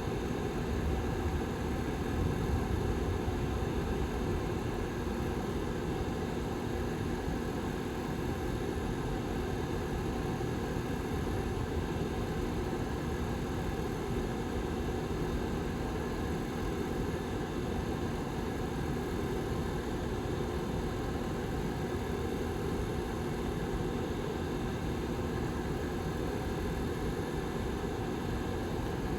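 Lasko Model 755320 tower heater's rear fan running steadily: an even rush of air with a faint steady hum.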